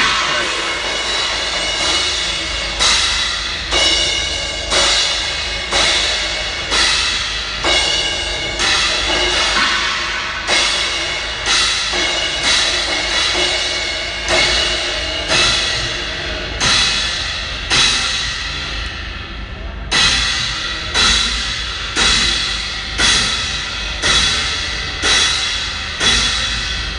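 Drum kit played in a slow, steady beat during a sound check: a stroke about once a second, each hit ringing out with cymbal wash, with a short break about two-thirds through before the beat resumes.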